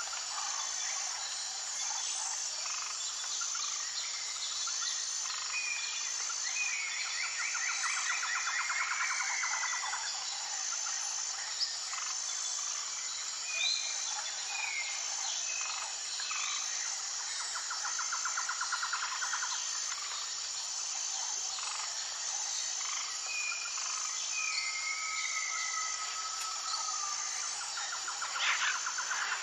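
Woodland nature ambience: several birds calling, with a few longer trilling phrases and short falling whistles, over a high insect-like pulse about once a second and a steady hiss.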